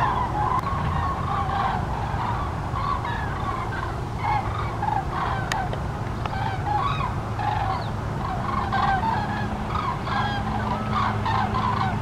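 A flock of common cranes calling in flight, many short overlapping calls throughout, over a steady low hum.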